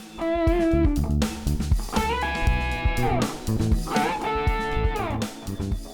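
Background music led by electric guitar, with sustained, bending notes over a steady bass and drum beat, fading out near the end.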